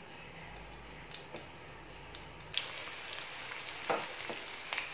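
Hot oil in a pan frying flour-coated cauliflower florets as they are dropped in for deep frying. A faint hiss with a few crackles at first, then a sudden, much louder steady sizzle about halfway through, with a few sharper pops near the end.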